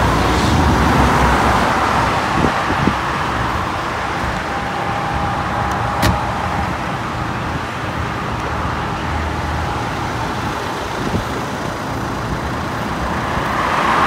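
Steady road-traffic noise and car engines beside a highway, with one sharp click about six seconds in.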